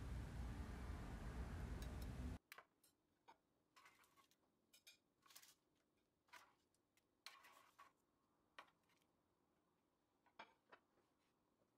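Faint scattered clicks and light scrapes of a knife and spatula against a baking tray and a plate as portions of baked fish are cut and lifted. A steady hiss runs for the first two seconds and then cuts off, leaving near silence between the clicks.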